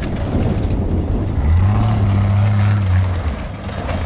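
Off-road race vehicle's engine, a rough low rumble that swells into a steady, louder drone about one and a half seconds in, holds for a couple of seconds, then drops back.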